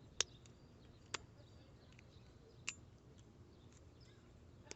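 Four short, sharp clicks, irregularly spaced, over faint room noise.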